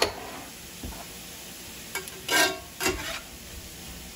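Shredded zucchini, onion and peppers sizzling softly in a cast iron skillet, with a sharp knock at the start and a few louder scrapes of a metal spatula stirring through the vegetables from about two seconds in.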